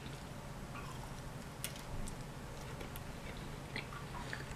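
Faint, scattered crunches of someone chewing pilipit, Filipino fried dough twists, over a steady low room hum.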